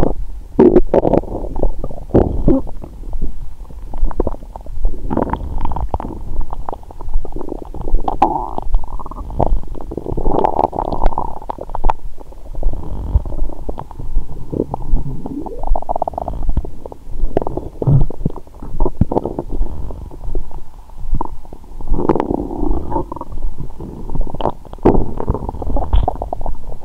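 Human stomach and intestines gurgling and rumbling almost without pause, with many short squelches, picked up by a lavalier microphone held against the belly. These are digestion sounds a few hours after a large meal.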